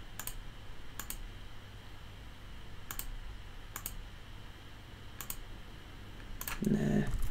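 Computer mouse button clicked about six times at an uneven pace, each click a quick press-and-release pair, paging through screenshots. Near the end comes a brief low hum of the voice.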